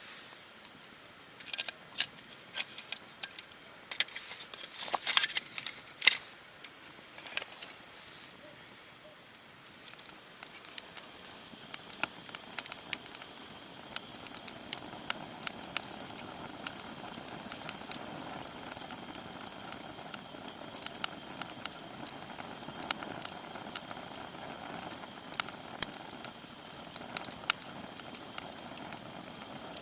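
Wood campfire crackling and popping, with irregular sharp snaps and a louder cluster of pops in the first several seconds, then a soft steady hiss under the crackle.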